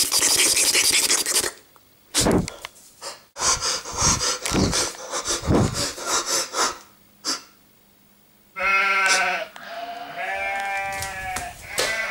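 A loud rush of hissing noise, then scattered knocks and scuffs, then from about eight and a half seconds in a run of wavering, high-pitched bleat-like cries.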